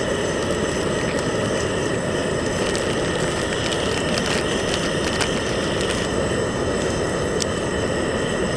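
Camping gas stove burner running with a steady rush, with small scattered crackles from food frying in the pan.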